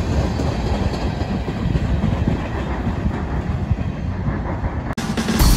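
Freight train of tank cars rolling past with a steady low rumble of wheels on rail. Near the end the sound cuts off abruptly and a louder, different sound begins.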